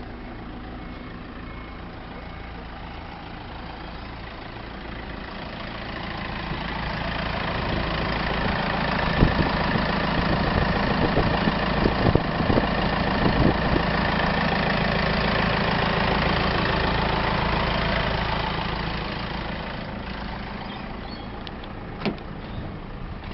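Mitsubishi Triton's 4D56 turbo-diesel four-cylinder idling steadily. It grows louder through the middle, with a few sharp knocks, and fades again near the end.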